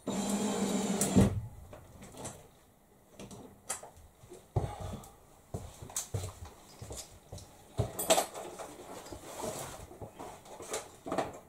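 Cordless drill running for about a second, driving a screw into the timber window frame, then stopping with a knock. Scattered clicks and knocks of the tool being handled follow.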